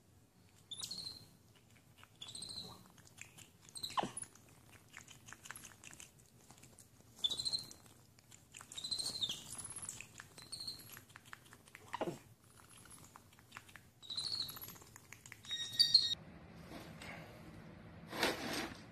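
Capuchin monkey giving a series of short, high-pitched chirping squeaks every second or two, with two sharper squeals among them. Near the end comes a brief rattling noise.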